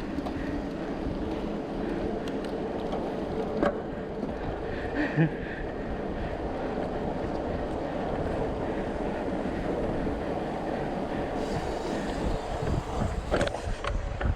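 Steady rushing wind on the microphone of a moving bicycle, with two short knocks about four and five seconds in.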